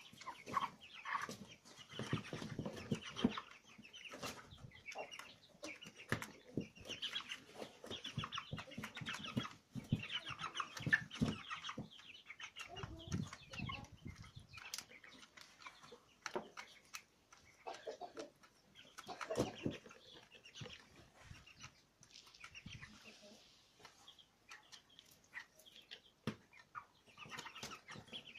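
Young broiler chickens clucking and peeping throughout, with frequent sharp taps and rustles as they peck feed from a plastic pan feeder and shuffle in straw.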